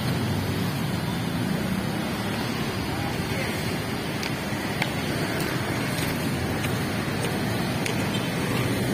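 Steady city road traffic: cars, motorbikes and buses passing on a busy street, a constant low rumble of engines and tyres with no single vehicle standing out.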